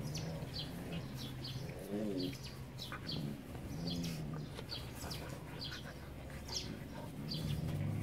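Small birds chirping repeatedly, with a few short low-pitched calls about two seconds in, about four seconds in and near the end, over a steady low hum.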